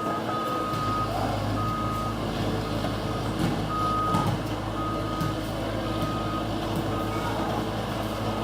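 Excavator's travel alarm beeping about once a second over its steadily running diesel engine.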